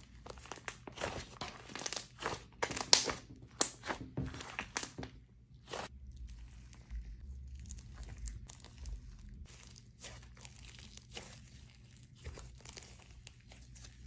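Thick slime being stretched, folded and squeezed by hand, giving off a stream of small crackles, pops and squelches. The crackling is denser and louder over the first five seconds or so, with one sharp pop about three seconds in, then goes on more softly.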